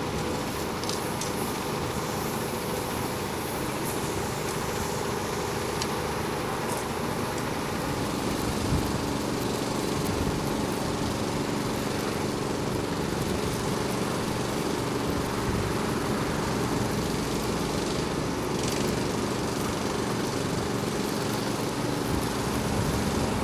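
Motor vehicle engine running steadily, with a constant drone and no change in pitch.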